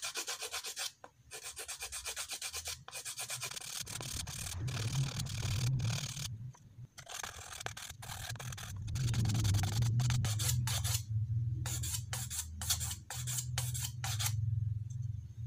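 Hand-sanding a small glue-coated stone on sandpaper wrapped around a stick, to smooth the hardened glue layer: quick back-and-forth scratching strokes, broken by a few short pauses.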